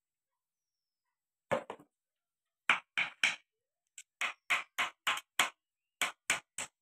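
A run of short, sharp metallic taps, about three a second, starting about a second and a half in. A steel screwdriver is knocking against the metal retaining strips on a tractor gearbox's gear-shift cover as they are worked loose.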